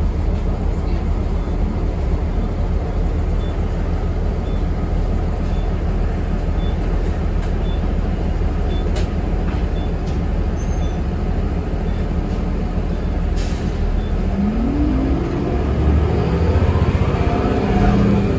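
Transit bus engine heard from inside the cabin: a steady low rumble with a faint ticking about twice a second. A short hiss comes about thirteen seconds in, then the engine pitch rises as the bus accelerates away.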